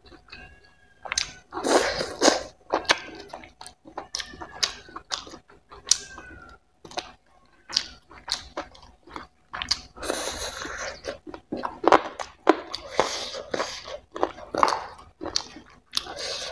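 Close-miked chewing and wet mouth smacks of someone eating curried chicken leg meat, in an irregular run of clicks, with a longer hiss about ten seconds in.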